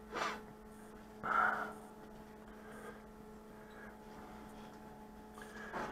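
A steady low electrical hum, with two short breathy or rustling noises in the first second and a half.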